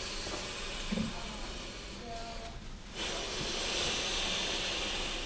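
A person breathing out slowly and steadily, an airy hiss that starts about three seconds in: the patient's exhale, which the chiropractor follows to time a full-spine pulling adjustment.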